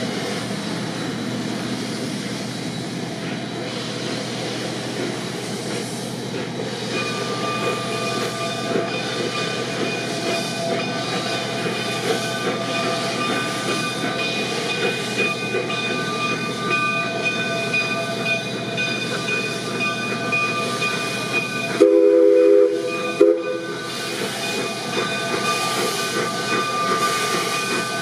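Coal-fired narrow-gauge steam locomotive hissing steam, with a steady high ringing tone joining the hiss about seven seconds in. About 22 seconds in its steam whistle gives a loud blast of about a second and a half, then a short toot.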